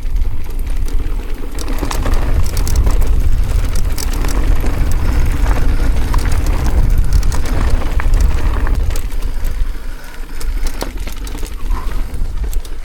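Wind buffeting the camera microphone while an e-bike is ridden down a rough mountain trail, a steady low rumble with scattered clicks and rattles from the bike and trail. The rumble swells about two seconds in and eases near the end.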